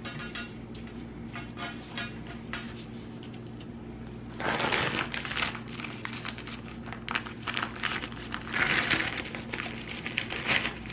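Hands packing dark brown sugar onto a raw corned beef: soft grainy rubbing and rustling in bursts, loudest about four seconds in and again around nine seconds, with small clicks, over a steady low hum.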